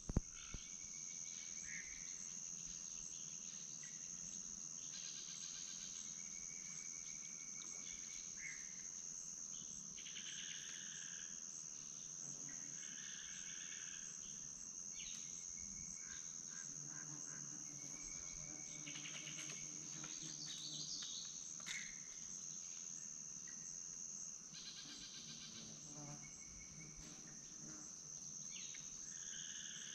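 Insect chorus: a steady high-pitched trill with shorter chirping calls coming and going.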